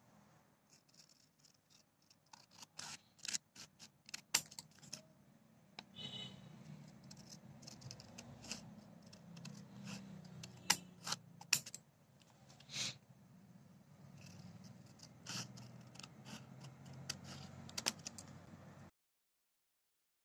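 Scissors cutting painted black paper: a run of sharp snips and blade clicks, irregularly spaced.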